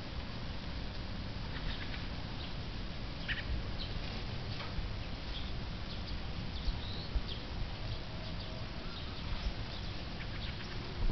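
A flock of fieldfares giving scattered short, harsh chattering calls, over a steady low rumble.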